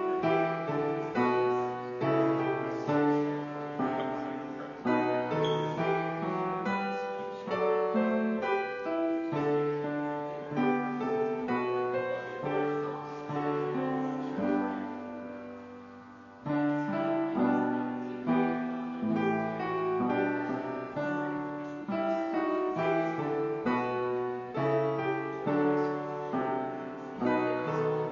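Piano music: a slow piece of struck notes and chords. About fifteen seconds in, a phrase dies away, then the playing resumes.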